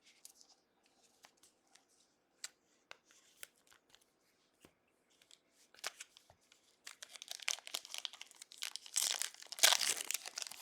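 Light clicks and taps of trading cards being handled, then, from about seven seconds in, the crinkling and tearing of a foil trading-card pack wrapper being ripped open, getting louder near the end.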